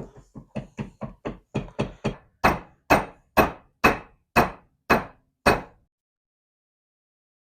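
Hammer driving new door-hinge bushings into a 1967 Pontiac Firebird door hinge. Quick light taps build into about seven heavier, evenly spaced blows, roughly two a second, then stop.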